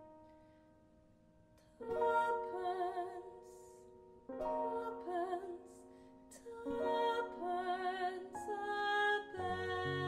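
A woman sings a slow ballad with vibrato, accompanied by piano and acoustic guitar. A chord dies away at first. About two seconds in, the voice and instruments come in, and new phrases start every two or three seconds. Low bass notes join near the end.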